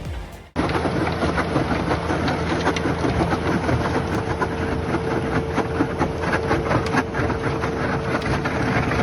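Heavy machine's engine running under load with dense clattering and rattling, cutting in abruptly after a short silence, with a steady whine throughout.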